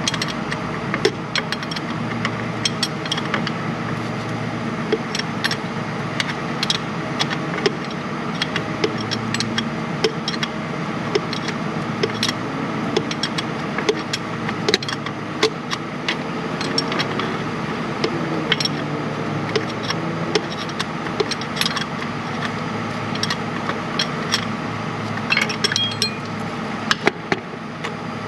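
Irregular light metallic clicks and clinks as a short 14mm wrench is worked on a starter mounting bolt in a tight spot, over a steady background hum.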